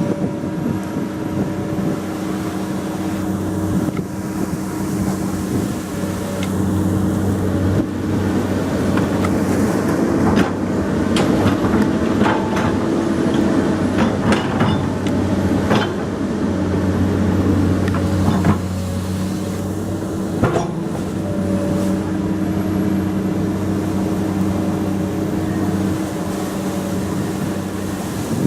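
Komatsu PC200 hydraulic excavator's diesel engine running steadily, growing louder under load through the middle. A scattering of sharp knocks and clanks comes in the middle stretch.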